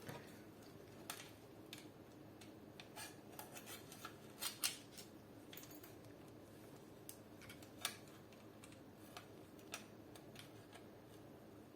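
Faint, scattered clicks and light scrapes of a hex key and small metal parts being handled while an airsoft AK is taken apart, with a few louder clicks around the middle.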